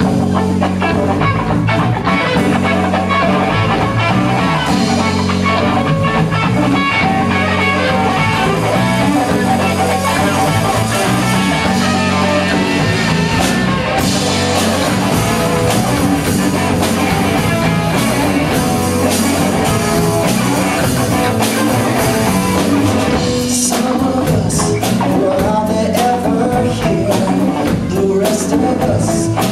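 Live rock band playing: electric guitar, bass guitar and drum kit together.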